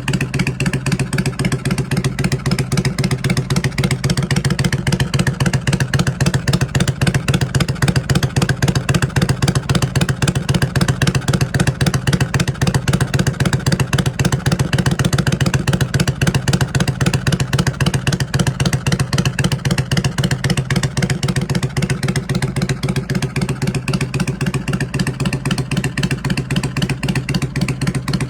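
Kawasaki Vulcan 400 Drifter's V-twin engine idling steadily, its exhaust giving a fast, even pulsing beat.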